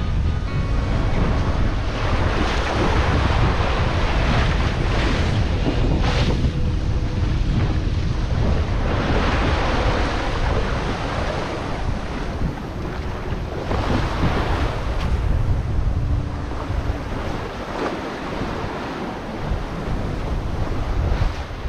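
Rough sea rushing and breaking along a sailing ship's hull, with wind buffeting the microphone. It is a loud, steady roar of noise that swells in surges every few seconds as waves pass.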